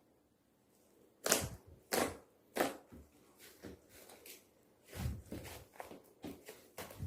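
Fluffy series slime being pressed and squished by hand, giving a string of sharp, wet popping clicks from trapped air. The loudest pops come a little after a second in, followed by smaller irregular ones.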